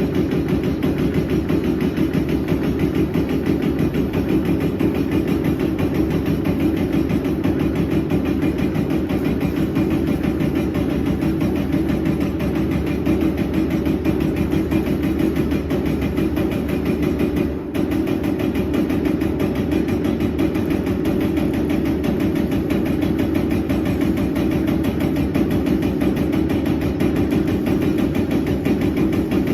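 Full-electric servo CNC turret punch press running, with a continuous stream of rapid punch strokes. There is a brief break about halfway through.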